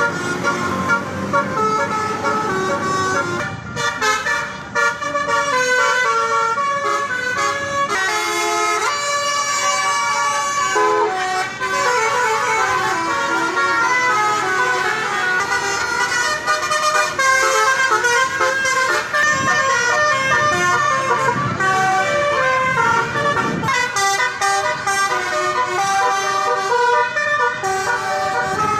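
Indonesian tour-bus 'telolet' horns: several pitched horn tones playing a fast, stepping melody that changes note every fraction of a second and goes on without a break.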